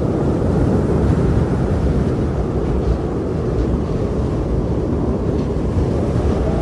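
Strong blizzard wind blowing steadily: a loud, low, even rush.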